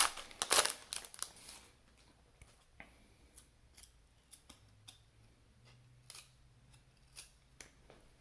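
A trading-card pack wrapper crinkling and tearing open for about the first second and a half, then faint, scattered clicks and rustles of the cards being handled.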